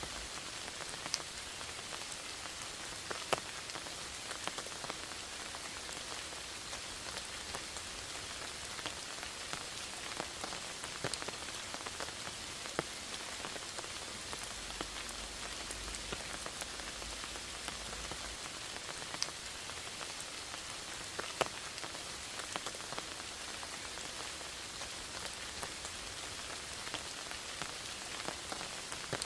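Steady rain falling in a forest, an even hiss with scattered sharper drop impacts ticking through it.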